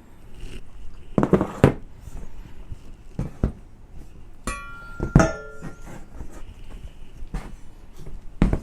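Metal parts of a motorcycle paddock stand being handled and knocked together: a few knocks and clanks, with two sharp metallic clinks that ring briefly about halfway through.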